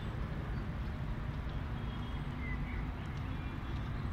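Steady outdoor background noise, mostly a fluctuating low rumble, with a faint brief high chirp a little past halfway.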